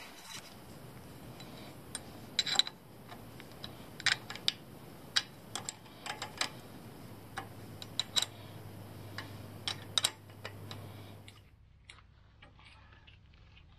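Metal hand tools clinking and knocking as they are picked up and set down on a concrete floor: a dozen or so sharp, irregular clicks about half a second apart. Near the end the sound drops to a quiet hum.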